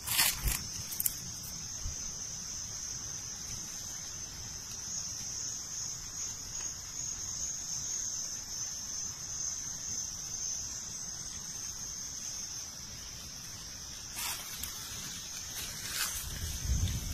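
Steady high-pitched drone of a forest insect chorus. A few short rustles and knocks, like footsteps in dry leaf litter, come just after the start and again near the end.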